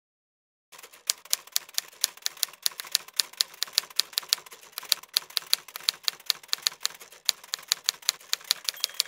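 Typewriter keys clacking in a quick, slightly uneven run of about five strikes a second, with a brief high ring near the end.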